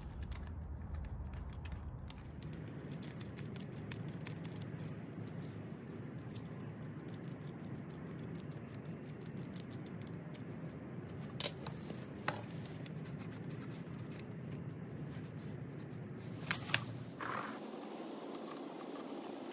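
Hands handling a motorcycle carburetor and its rubber-mounted pod air filter: faint scraping and rubbing of parts, with a couple of sharp clicks around the middle and two more close together near the end, over a steady low background noise.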